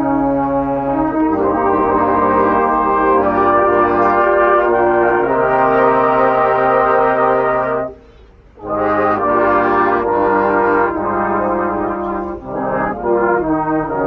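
Brass band of cornets, euphoniums and tubas playing sustained chords. About eight seconds in the band breaks off for half a second, then comes back in, with shorter chords near the end.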